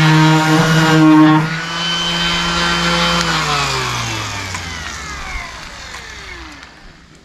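Random orbital sander with 220-grit paper running on a varnished mahogany tabletop. Its sound drops about a second and a half in as it comes off the wood, then it is switched off and winds down, the hum falling steadily in pitch until it stops near the end.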